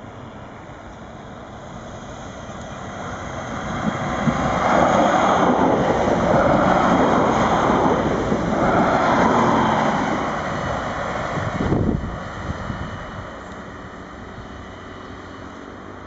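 Two coupled Stadler Regio-Shuttle RS1 diesel railcars passing close by. Engine and wheel noise swells over a few seconds and stays loud for about six seconds, with a dip in the middle. A short thump comes near the end of the pass, then the noise fades to a low rumble as the train runs off.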